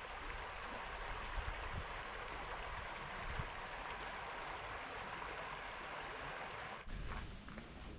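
Shallow river rapids rushing steadily over stones and boulders. The water sound cuts off abruptly near the end, giving way to quieter outdoor sound.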